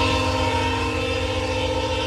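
Train air horn sounding one long, steady chord of several notes, with the train's low rumble underneath.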